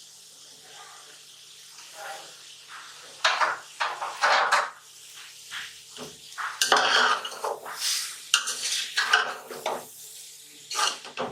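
Cooking spoon scraping and clattering against a pot as vegetables are stir-fried in oil. The strokes are irregular and start about three seconds in.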